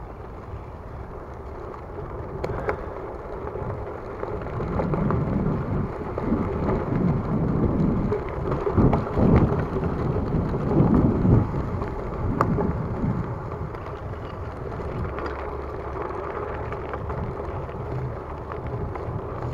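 Wind buffeting the microphone as a bicycle rolls over a dirt trail, with tyre noise and a few sharp clicks and rattles over bumps. The rumble swells from about four seconds in and eases off after about thirteen seconds.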